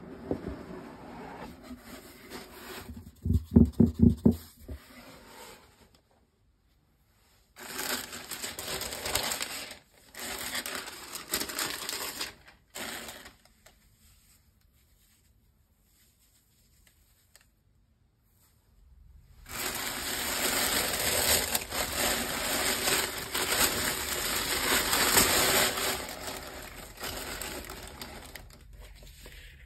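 Tissue paper rustling and crinkling in a cardboard shoebox as it is opened and a sneaker is unwrapped, in separate handling bouts with the longest and loudest near the end. A quick run of low thumps from the box comes a few seconds in.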